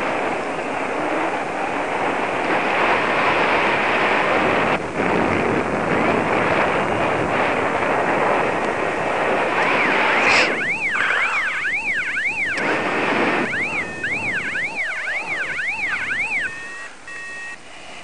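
Wind rushing over the microphone in flight. From about ten seconds in, a paraglider variometer's tone warbles rapidly up and down like a siren, stopping shortly before the wind noise drops away.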